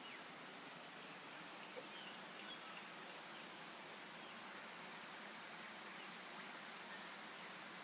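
Quiet outdoor ambience: a steady, faint hiss with a few faint bird chirps.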